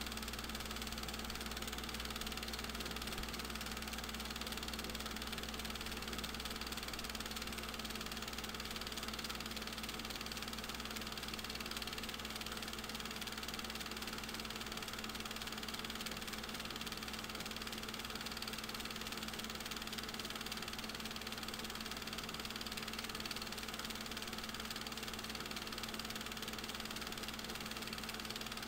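Film projector running: a steady, unchanging motor whir with hiss and a low hum.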